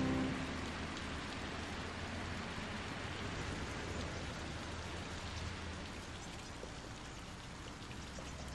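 Water of a fountain splashing and falling steadily. The end of a piece of music fades out right at the start.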